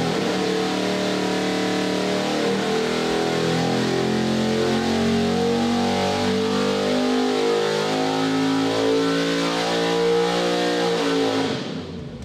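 A 408 cubic-inch Ford Windsor stroker V8 with a carburettor and a solid-roller cam, running hard on an engine dyno through a wide-open-throttle pull. It backs off near the end.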